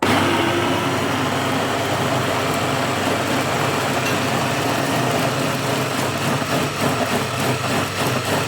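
Electric blender running on pomegranate seeds to juice them. It starts abruptly and runs steadily, wavering a little in level in the second half.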